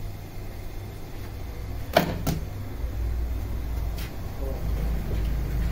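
Large bakery dough mixer running, a steady low motor hum that grows stronger about three seconds in as its arm works a wet bread dough. Two sharp knocks sound about two seconds in, and a fainter one near four seconds.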